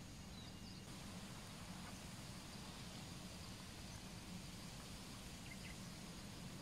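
Quiet outdoor creekside ambience: a steady low background hiss, with a couple of faint short chirps.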